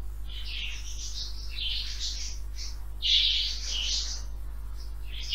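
High chirping, like birds twittering, coming in repeated clusters about a second long, the loudest about three seconds in, over a steady low hum.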